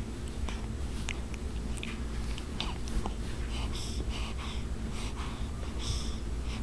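Small, breathy sneezes, a few seconds in and again near the end, over faint clicks and a low handling rumble.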